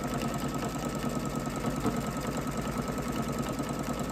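Electric sewing machine with a walking foot fitted, stitching steadily at an even, rapid pace as it quilts straight lines through the layers of a quilt.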